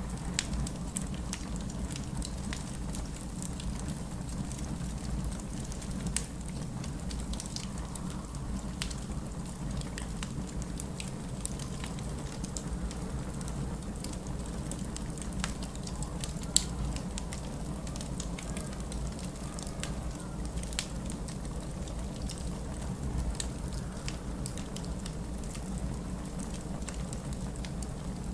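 Wood fire crackling in a fireplace, with scattered sharp pops and one louder snap past the middle, over a steady low rumble.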